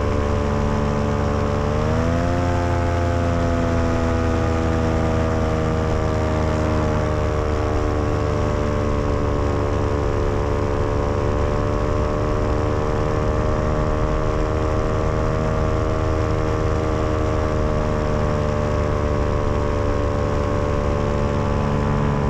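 Vittorazi Moster 185 Plus single-cylinder two-stroke paramotor engine running steadily in flight. About two seconds in the pitch rises quickly with more throttle, then slowly eases back down and holds steady.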